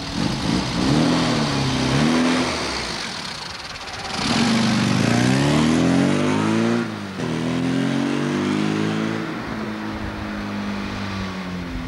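Classic Mini's A-series four-cylinder engine revving hard as the car pulls away, the pitch climbing and dropping with each of about three gear changes, then fading as it drives off.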